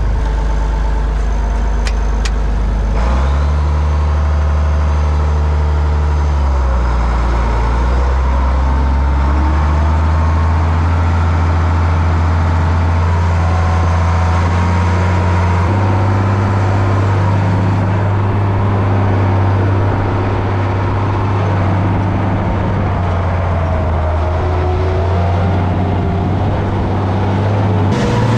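International Harvester 1466 tractor's turbocharged six-cylinder diesel engine, heard from inside the cab. It revs up about three seconds in, steps up again around the middle, and runs steadily under throttle as the tractor drives.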